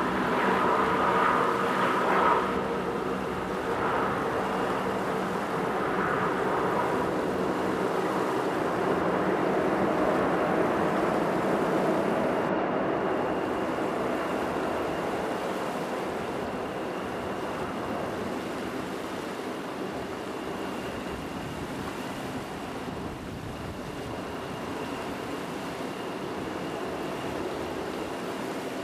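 Four-engine turboprop of a Kawasaki P-3C Orion, a steady droning hum of several tones that slowly fades as the aircraft draws away, leaving a broad rushing noise.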